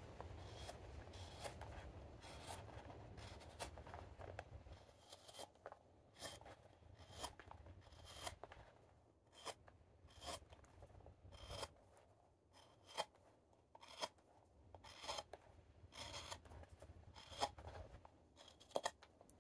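Carving knife taking short thumb-push slicing cuts on the thin rim of an unseasoned green-wood cup: a string of faint scraping cuts, about one or two a second.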